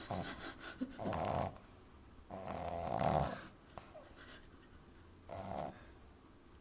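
French bulldog puppy snoring loudly in her sleep: a few separate snores with quiet pauses between them, the longest about two and a half seconds in. The snoring is typical of the breed's short, flat-faced airway.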